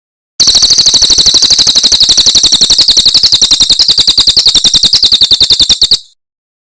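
Kecial kombok (cucak kombok) songbird giving a fast, even trill of high notes, about eleven a second, lasting nearly six seconds. It starts and stops abruptly.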